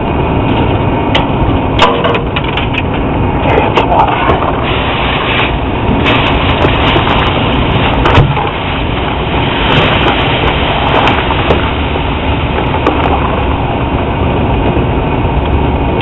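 Brazing torch flame hissing steadily at a copper joint beside a wet-rag-wrapped reversing valve, with scattered sharp crackles.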